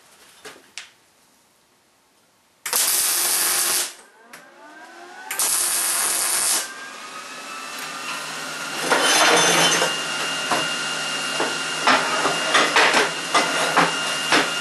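Two short MIG tack welds on steel tubing, each about a second of loud, hissing arc crackle. From about 9 s in, a steady whirring machine sound runs under sharp metallic clanks as the steel pieces are handled on the welding table.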